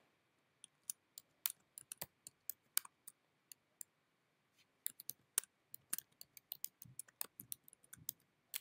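Keys clicking on a computer keyboard as a word is typed: scattered keystrokes, a pause of about a second near the middle, then a quicker run of keys.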